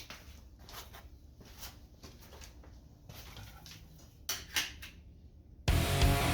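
Faint clicks and handling noises of metal parts being worked, with two sharper clicks a little past four seconds in. Near the end a power tool and loud music cut in suddenly.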